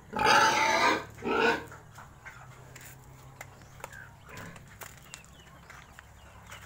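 A hungry pig squealing twice: a loud call about a second long, then a short one. Both come in the first second and a half.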